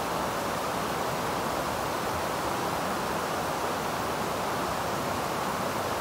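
Shallow river rushing over rocks and a low weir: a steady, even rush of water that does not change.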